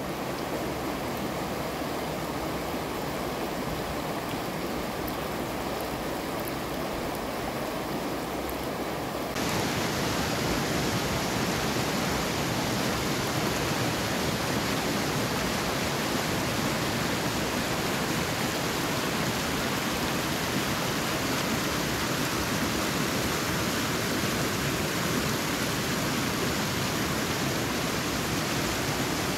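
Running water flowing steadily over stone. About nine seconds in it jumps abruptly louder, to a fast, shallow stream rushing down a stone-walled channel.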